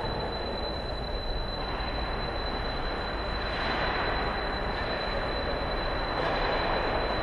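Steady rumbling ambience of an ice hockey rink during play, swelling slightly about three and a half seconds in, with a constant thin high whine over it.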